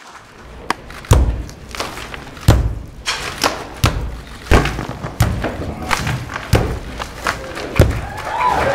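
Sledgehammer striking an old brick wall again and again, knocking bricks loose, with a heavy thud every second or so.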